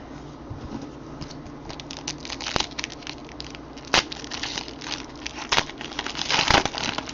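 Crinkling and crackling of baseball card pack wrappers and cards being handled, a string of sharp clicks and snaps, the loudest about six and a half seconds in.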